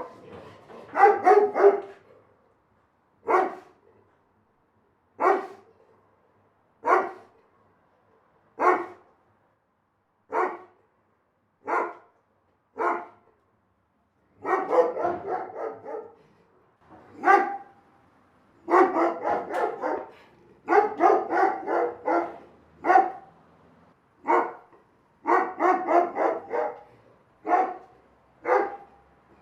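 A big dog barking: single barks a second or two apart at first, then about halfway through, quick runs of several barks in a row.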